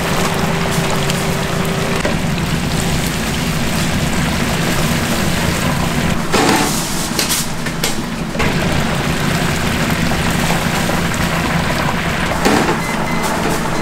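Chicken pieces sizzling and crackling in a large pot of hot deep-frying oil as a wire basket stirs and lifts them, with a steady low hum underneath.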